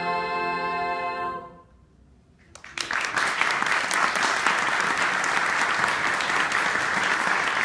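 Women's chorus holding a final sung chord that dies away about a second and a half in, a brief hush, then audience applause breaks out and keeps going.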